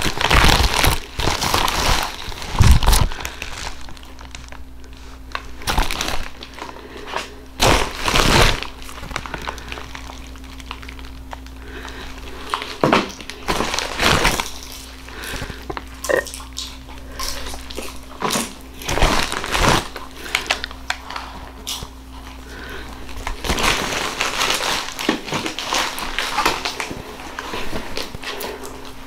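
Packaging crinkling and rustling as it is handled, in irregular bursts with quieter stretches between.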